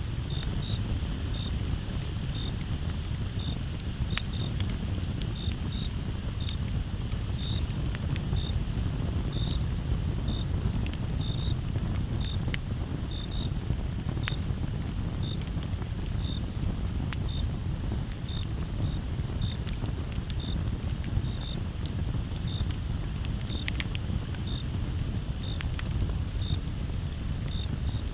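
Campfire crackling, with sharp wood pops scattered throughout over a low steady rumble. Crickets chirp with them: short high chirps about one to two a second over a steady high insect trill.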